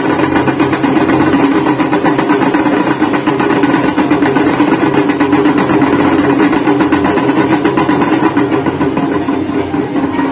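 Evening Ganga aarti ceremony's devotional music, a loud unbroken din of rapid, steady percussion and ringing with a continuous low-middle drone underneath.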